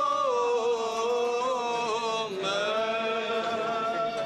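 Men's voices singing Orthodox chant in long held notes. The pitch steps down a little in and shifts again about halfway through.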